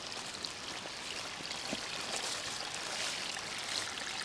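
Shallow, low-water creek trickling and gurgling steadily, a little louder from about two seconds in.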